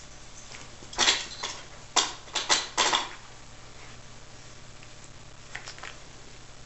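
A Yorkshire terrier tussling with a plush hedgehog toy. About a second in comes a quick run of about six short, sharp noises over two seconds, then two faint ones near the end.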